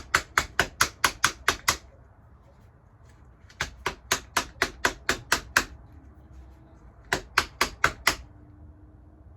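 Blocked chainsaw air filter being tapped against a hard surface to knock the dirt out: sharp, even taps about five a second, in three runs with short pauses between.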